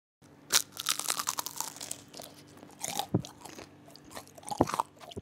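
Crisp deep-fried noodle pakoras crunching and crackling as they are handled and broken apart by hand. There are three louder crunches: about half a second in, around three seconds in, and near the end.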